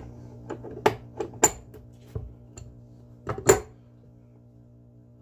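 An adjustable steel wrench and metal hardware clinking and knocking against a wooden seat board. There are a handful of sharp clinks, some ringing briefly, and the loudest knock comes about three and a half seconds in.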